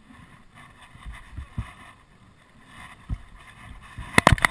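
Light water and wind noise with a few low knocks, then a quick burst of sharp clicks and splashes near the end.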